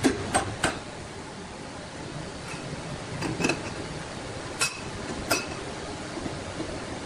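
Large wood lathe running steadily, with about seven sharp metallic clinks that ring briefly: three in the first second, a pair about three and a half seconds in, then single clinks near four and a half and five and a half seconds.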